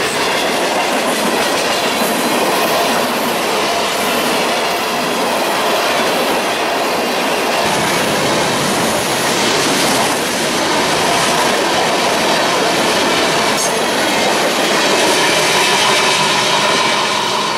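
Freight train of tank cars and covered hoppers rolling past, steel wheels running loud and steady on the rails.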